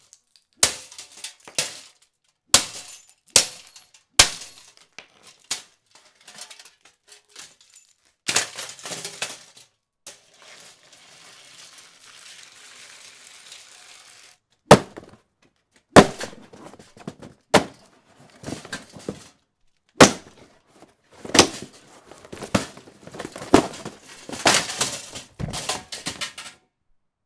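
A Lasko 3733 box fan being smashed, likely with a golf club: a long series of sharp blows with cracking and clattering of broken plastic pieces. There is a lull of faint steady noise in the middle, then a quick flurry of blows near the end.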